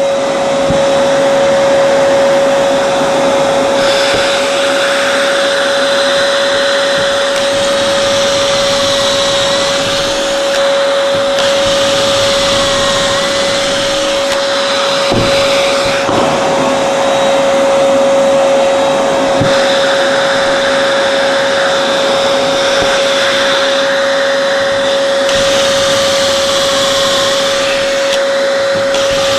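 Shop vacuum hooked to a Kreg pocket-hole jig running steadily with a constant whine, while a DeWalt cordless drill bores pocket holes into a 2x4 in about four spells of a few seconds each, its pitch rising and falling as it cuts.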